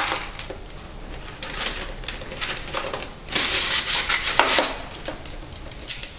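Foam model-airplane parts and ducted-fan units being handled and pressed together: rubbing and scraping with light clicks, loudest from about three to five seconds in.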